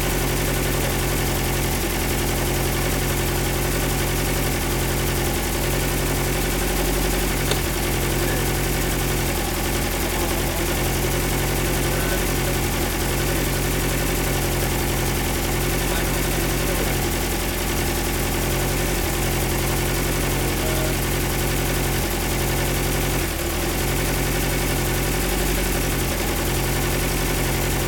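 Modified 2.2-litre Ford Pinto SOHC four-cylinder engine on twin 45 mm Dellorto DHLA carburettors, running on an engine stand through a short open exhaust. It idles steadily, with no blips of the throttle.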